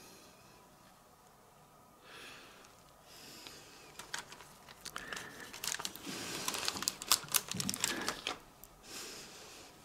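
A plastic comic-book bag crinkling and rustling as the comic is handled on a wire spinner rack, with many sharp clicks. It starts about three seconds in and is loudest a few seconds later, then dies down near the end.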